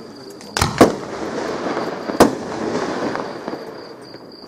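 Aerial fireworks exploding: two sharp bangs close together about half a second in and another loud bang a little past two seconds, with continuing noise from the display between them.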